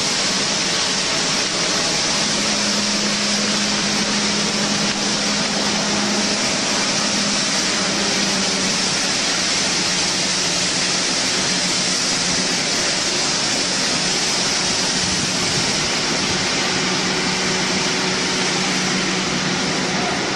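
Steady rushing hiss of fire hoses spraying onto a large fire as it is knocked down, with a faint low hum coming and going underneath.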